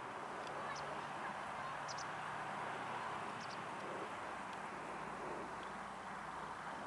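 Faint, steady drone of the B-17 Flying Fortress's four Wright Cyclone radial engines as it banks overhead, with a few brief high chirps over it.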